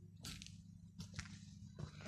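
A few faint footstep scuffs on dry dirt and straw, over a faint steady low hum.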